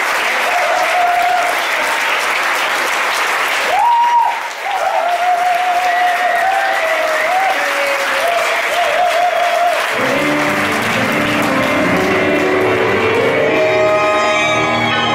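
Audience applauding, with a wavering tone held over the clapping; about ten seconds in, a tango trio of piano, bandoneon and violin starts playing the next piece.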